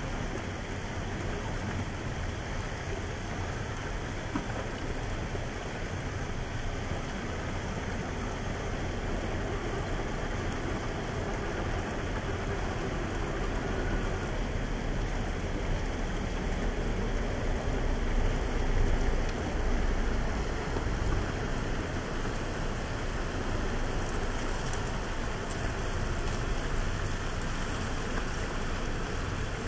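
Steady rushing of water in a shallow rocky creek, swelling a little around the middle.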